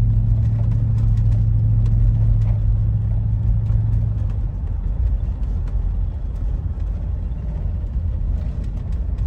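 Toyota 100-Series Land Cruiser driving, heard from inside the cabin: a steady, smooth engine and exhaust drone over a low rumble, the exhaust freshly welded and sealed with no leaks. The steady hum eases off a little past the middle.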